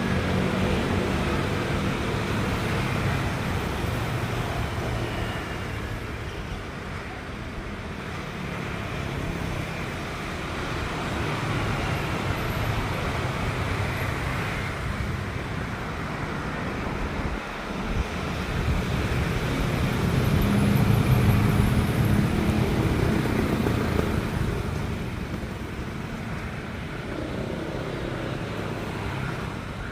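A continuous engine rumble with traffic-like noise. It swells to its loudest about two-thirds of the way through, then eases off.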